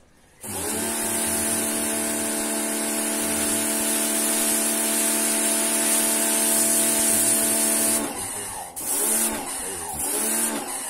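Pressure washer running with a steady hum and the hiss of its spray jet; it stops about eight seconds in, then starts and stops again in two short bursts.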